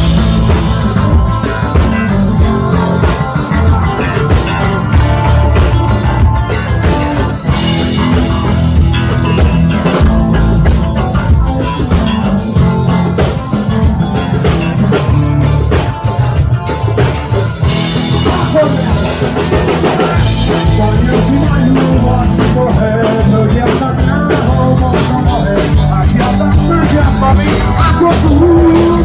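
Punk band playing live, loud and rough: drums, electric guitar and singing, in a punk arrangement of an old folk song.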